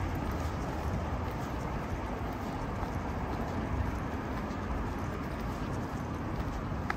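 Steady outdoor city background noise with a low rumble and no distinct events.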